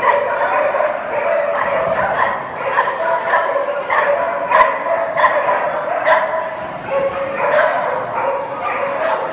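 Dog yipping and barking excitedly, about three times a second without a break.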